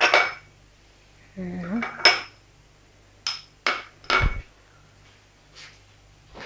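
Glass dessert cups being set down one after another on a hard countertop: about five sharp clinks and knocks over the first few seconds, the last with a dull low thump.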